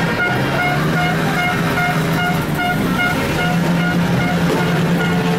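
Indonesian bus 'telolet' multi-tone horn playing a tune: short high notes repeating about twice a second over lower held notes that step in pitch.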